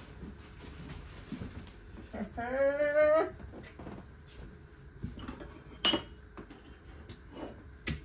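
Light clinks and knocks of dishes and kitchen items being handled on a counter, with a sharp clink about six seconds in and another near the end. About two seconds in, a person gives a brief hummed or sung vocal note lasting about a second, the loudest sound.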